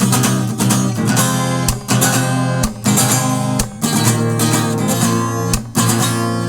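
Acoustic guitar strummed in a steady chord rhythm, an instrumental break with no singing. The strumming is briefly damped about once a second.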